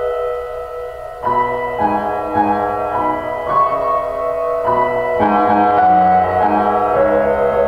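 Calm ambient music: sustained held tones, joined about a second in by a slow melody of keyboard notes.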